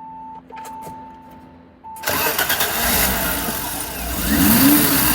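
BMW E30 325i's 2.5-litre straight-six engine starting about two seconds in after a steady high tone and a few clicks, then running and revving up under throttle near the end. It is started with the throttle held open while the idle control valve, suspected of causing a surging, stalling idle, is unplugged for testing.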